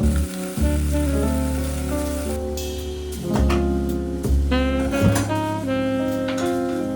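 Instrumental jazz background music with melody notes over a bass line. Under it, in the first couple of seconds, there is a soft sizzling hiss, as of food frying in a pan.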